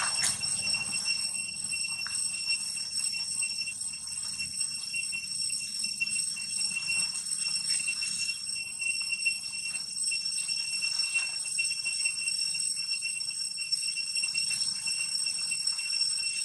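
A steady, high-pitched insect drone of several ringing tones, with a few short squeals from young long-tailed macaques wrestling, the sharpest right at the start.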